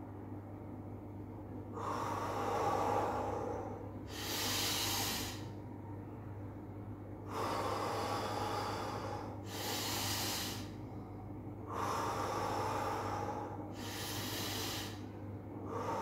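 A man's deep, audible breathing exercise: slow breaths drawn in through the nose and blown out through the mouth, about three and a half rounds. Each round is a longer, softer breath followed by a shorter, sharper hiss, with pauses between. A faint steady hum runs underneath.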